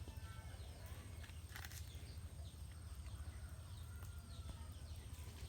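Faint outdoor ambience with scattered short bird chirps, over a steady low hum and a thin steady high whine. A brief rustle comes about a second and a half in.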